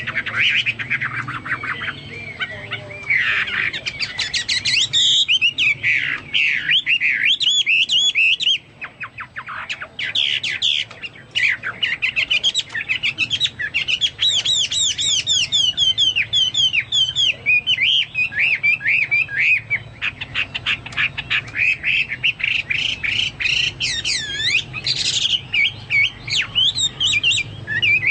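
Chinese hwamei singing continuously: a fast, varied stream of loud, clear whistled phrases that swoop up and down, with a brief lull about nine seconds in. It is a full, vigorous song with phrases resembling a cucak Papua or cucak mas.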